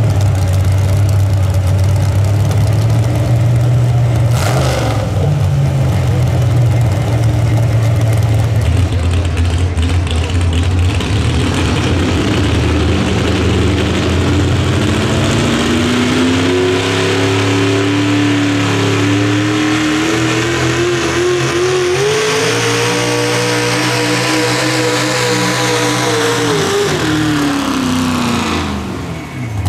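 Pulling tractor's engine running hard at high revs, its pitch climbing steadily through the second half, then falling and dropping away near the end as the throttle comes off.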